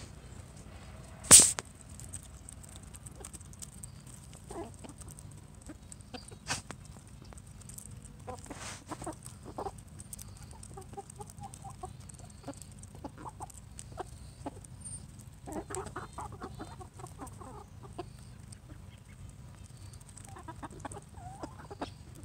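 Calico Princess and Sapphire Gem hens clucking in short runs while pecking at scratch on dirt, with many small pecking taps. A single loud thump comes about a second in.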